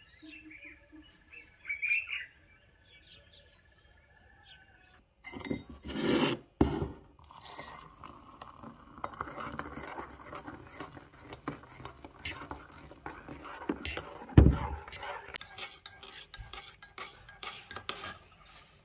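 Birds chirping over a steady high trill for the first few seconds. Then a metal spoon stirs a drink in a ceramic mug, scraping and clinking against the sides, with one sharp, loud knock about two-thirds of the way through.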